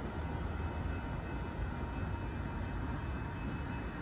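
Amtrak passenger train running by at a distance: a steady low rumble of wheels on rail.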